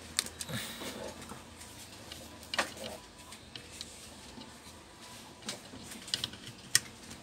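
A few scattered sharp clicks and taps over faint room noise, the loudest near the end.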